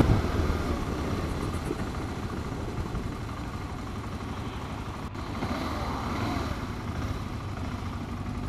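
Motorcycle running steadily under way: a low, steady engine hum with a haze of wind and road noise, swelling slightly about five to six seconds in.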